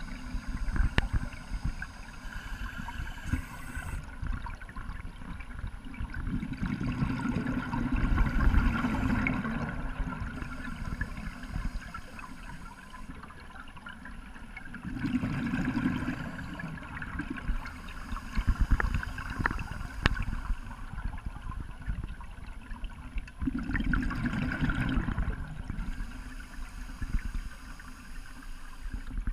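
Scuba divers' regulators underwater: exhaled bubbles gurgle out in swells about eight seconds apart, three times, over a steady low rumble of the water.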